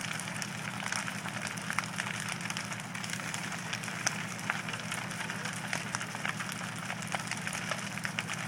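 A large wooden house fire burning: a steady rushing hiss full of irregular crackles and pops from the burning timber, over a steady low hum.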